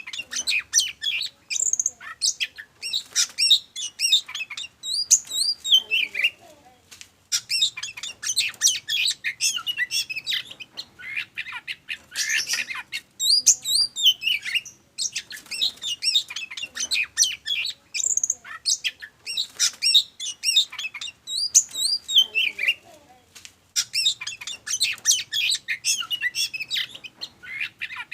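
Oriental magpie-robin (kacer) singing a rapid, varied song of high whistles, trills and harsh notes in long bursts broken by short pauses. It is a looped lure recording: the same passage repeats about every 16 seconds.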